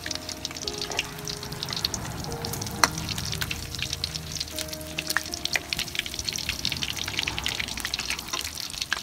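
Small battered fish deep-frying in hot oil in a wok, crackling and sizzling steadily while a metal ladle stirs them. The ladle clinks once against the wok about three seconds in.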